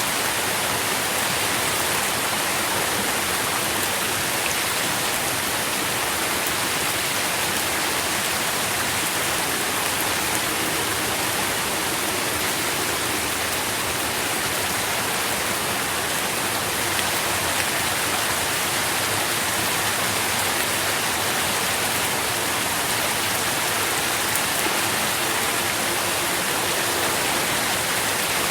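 Steady, even rain falling on leaves, a dense continuous hiss with no breaks.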